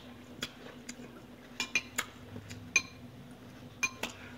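Cutlery clinking lightly against a dish while eating: about eight short, irregular clinks, a few of them ringing briefly.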